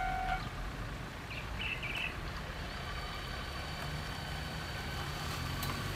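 Level-crossing warning bell ringing in steady pulses, cutting off about a third of a second in once the train has cleared. A few short bird chirps follow, then the low steady hum of a waiting vehicle's idling engine.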